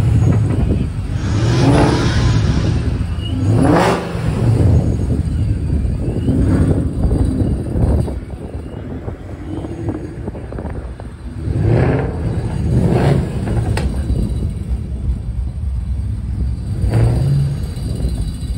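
Car engines revving in repeated short bursts every few seconds, with a quieter stretch in the middle.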